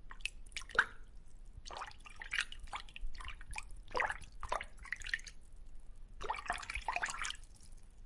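Water bubbling and plopping: an irregular run of short drips and blips coming in small clusters, as from bubbles in an aquarium.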